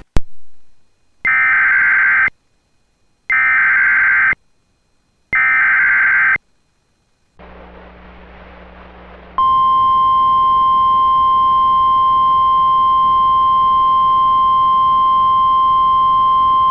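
Emergency Alert System SAME header: a click, then three one-second bursts of warbling data tones, followed a few seconds later by a steady, loud single-pitch warning alarm tone of about 1 kHz, the NOAA Weather Radio 1050 Hz tone announcing a new warning, here a flash flood warning.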